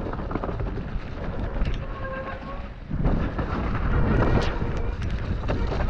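Mountain bike riding down a wet, muddy trail: wind buffeting the microphone, tyre noise and the bike's rattle, with sharp knocks over bumps. The wind rumble gets louder about three seconds in.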